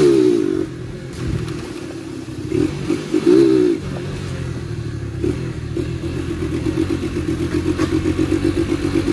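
Yamaha YBR single-cylinder four-stroke motorcycle engine on the move, rising and falling in pitch twice in the first few seconds, then running with a steady throb. It has a dual exhaust, and the air filter is open, which lets more intake noise through.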